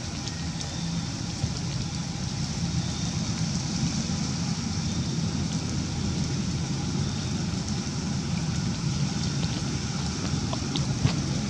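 Steady low rumble of outdoor background noise, with a few faint ticks and a short click near the end.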